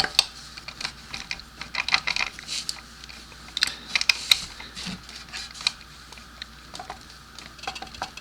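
Irregular light clicks and metallic clinks of hand tools being handled, with no steady machine sound.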